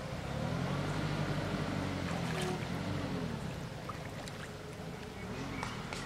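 Water splashing and lapping as monkeys swim and thrash in a muddy pond, with a few short sharp splashes. Under it, a low droning sound rises and falls in slow swells during the first half and again near the end.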